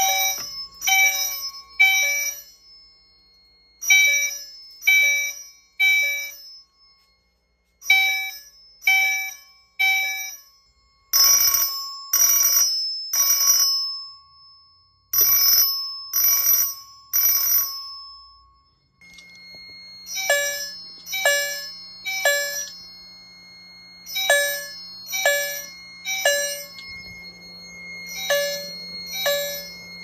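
Fire alarm chimes striking in the temporal-three evacuation pattern: three strikes about a second apart, then a pause, over and over, after a manual pull station has put the system into alarm. From about 11 s to 18 s the strikes are longer and louder, from a Simplex 2902-9207 vibrating chime. After about 19 s a steady high tone and a low hum sound under the strikes.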